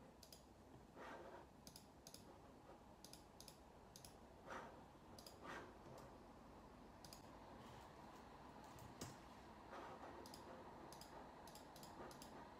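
Quiet, irregular clicking from a laptop keyboard and trackpad, a few clicks a second with pauses between them.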